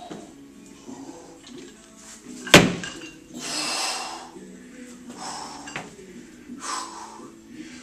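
A loaded Olympic barbell clanks once, sharply, about two and a half seconds in, as it is power-cleaned from the floor into the front rack at the shoulders. The lifter breathes hard with hissing exhalations after the catch, and background music plays.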